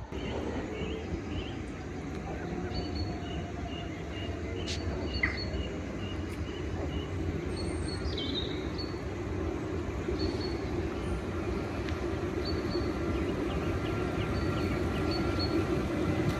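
Southeastern electric multiple-unit train running along the line, its noise growing steadily louder as it approaches.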